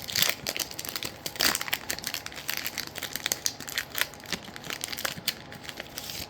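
Foil booster-pack wrapper crinkling and tearing as a Pokémon card pack is opened, in many irregular crackles with louder rips near the start and about a second and a half in.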